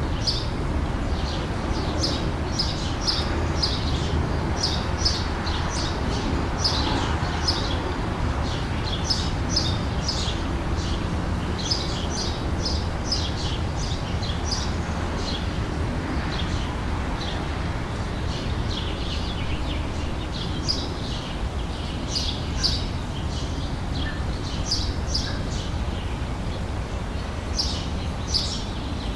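Outdoor summer ambience: small birds chirping again and again, short high chirps in quick clusters, over a steady low rumble.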